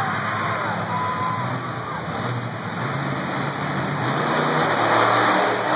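Monster truck engine running, with crowd noise mixed in; it grows a little louder about five seconds in.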